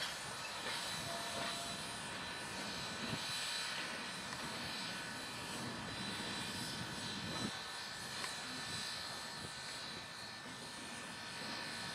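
Steam locomotive moving slowly away, heard as a steady hiss and low rumble with a couple of faint knocks.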